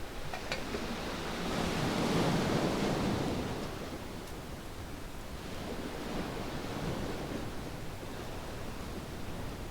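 Waves washing onto a sandy beach: one surge builds and peaks about two seconds in, then fades, with a weaker surge later.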